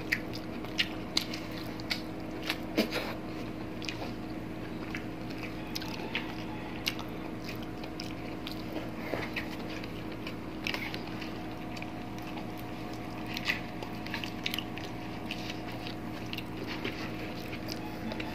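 Close-up chewing and lip-smacking of people eating fried fish and rice by hand, with scattered sharp clicks and crunches, over a steady low hum.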